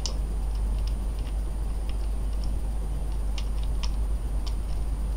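Scattered small clicks and ticks as the knurled battery cap of a Kanger DripBox squonk box mod is handled and screwed onto its threads, over a steady low hum.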